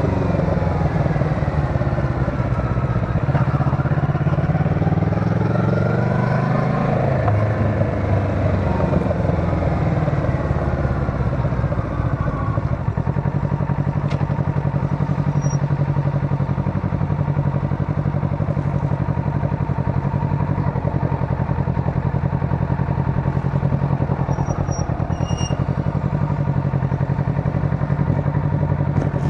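Motorcycle engine heard from the bike while riding. Its revs rise and fall over the first several seconds, as with gear changes, then settle into a steady cruise.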